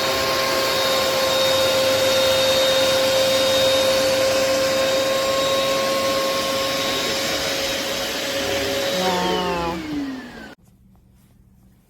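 Hoover PowerDash Pet carpet cleaner's motor running with a steady high whine, then switched off about nine seconds in, its pitch falling as it winds down and stops.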